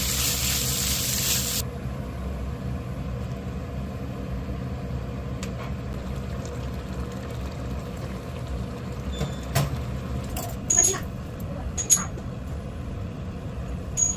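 Kitchen sounds: a loud hiss that cuts off suddenly about a second and a half in, then a steady low hum with several sharp clinks, some ringing briefly, in the second half.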